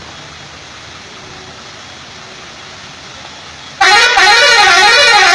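A tourist bus's musical air horn blares about four seconds in, very loud, its pitch swinging up and down a couple of times a second in a repeating warbling tune. Before it there is a steady hiss.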